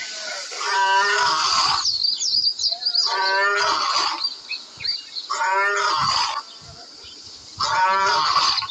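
A lion's roar sound effect repeated four times, each call about a second long and evenly spaced, with birds chirping steadily throughout.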